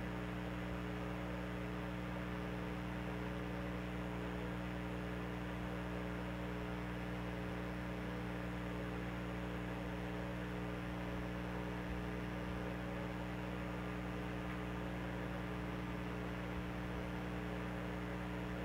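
Steady electrical hum made of several fixed, unchanging tones, with nothing else happening.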